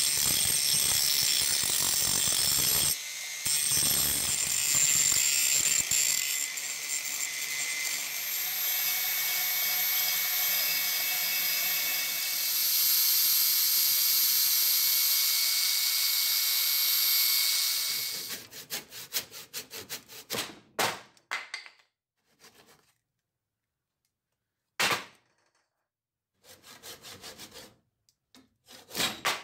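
A sanding drum in a power drill grinding rust off a steel ripping tine: a steady, high grinding hiss with a short break about three seconds in. After about eighteen seconds it gives way to a hand saw cutting a wooden block, first a run of quick strokes, then a few separate strokes.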